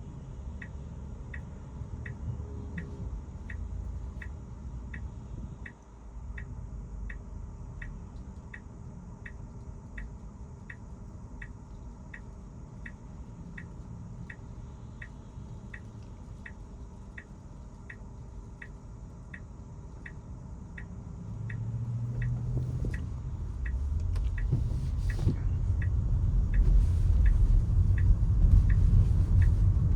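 Tesla turn-signal indicator ticking steadily in the cabin, about one and a half ticks a second, over low road rumble. About twenty seconds in, the tyre and road rumble grows much louder as the car picks up speed.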